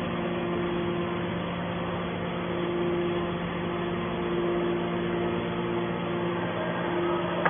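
Hydraulic scrap baler's power unit running steadily: a constant low hum with a higher tone that drops out and comes back a few times.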